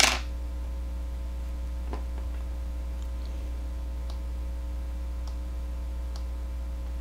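A sharp tap at the start, then faint scattered clicks about once a second, from a plastic modelling tool and hands working Play-Doh on a tabletop, over a steady low hum.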